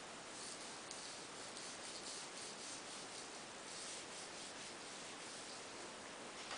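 Faint, scratchy rubbing of a small paintbrush's bristles working over watercolour paper, a run of quick short strokes that eases off about three seconds in.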